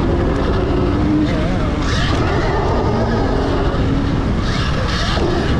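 Dirt bikes racing on a motocross track: engines revving, their pitch rising and falling, over a heavy steady rush of noise.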